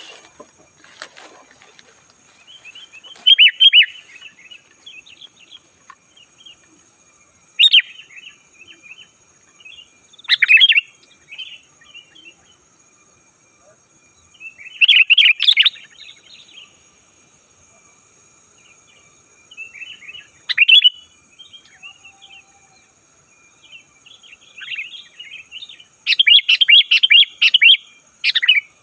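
Sooty-headed bulbul (kutilang) singing: short bursts of bubbly, chattering phrases every few seconds, with a busier run of notes near the end.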